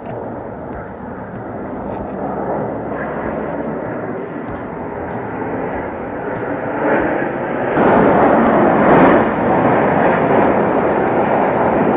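Airplane flying past at an air show, its engine noise a broad rush that builds and becomes loudest from about eight seconds in.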